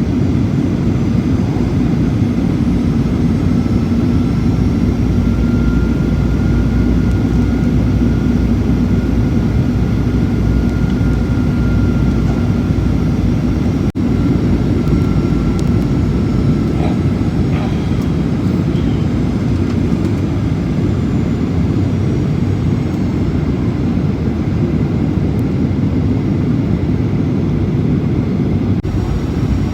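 Jet airliner landing, its engines and airflow making a steady, loud rumble with a faint high whine above it.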